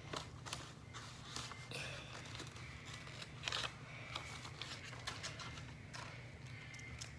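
Scissors snipping through notebook paper in short, irregular cuts, with the sheet rustling as it is turned.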